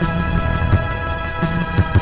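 General MIDI music played by a SAM2695 synthesizer chip: sustained synth chords over a fast ticking hi-hat and occasional low drum hits.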